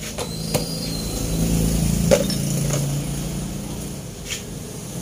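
A pot of clam soup simmering on the stove: a steady low hum with a handful of sharp clicks, the strongest about two seconds in.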